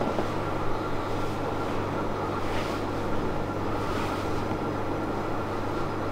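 Steady machine hum with a constant low drone and a faint high tone, with a few soft swishes a couple of times.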